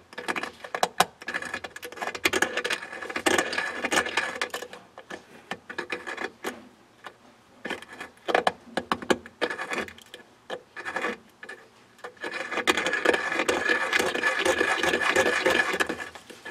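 Hand deburring tool's blade scraping around the edge of a freshly hole-sawed 3/4-inch hole in a metal bracket, cleaning off the burr. Short irregular scrapes and clicks, turning into denser, more continuous scraping for the last few seconds.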